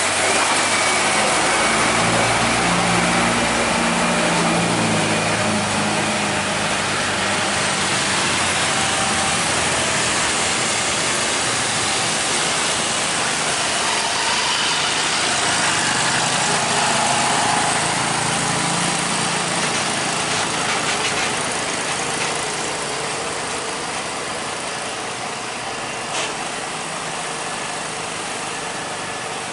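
Truck engines running in traffic over steady road noise. The deep engine note is strongest for the first several seconds and again about halfway through, and the overall sound eases off toward the end.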